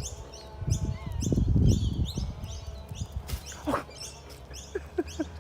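Small animal chirping: short, high-pitched chirps repeating about three times a second, with a low rumble about one to two seconds in.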